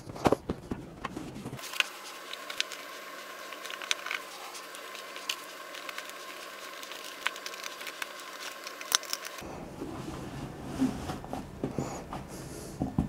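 Fabric drawer bins being handled and pushed into a metal-frame dresser: light rustling and scraping with scattered small clicks and knocks.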